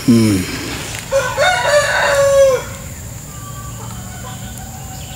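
A rooster crowing once, a long call that rises, holds level and drops away at the end, about one to two and a half seconds in. A short call falling in pitch comes just before it, at the very start.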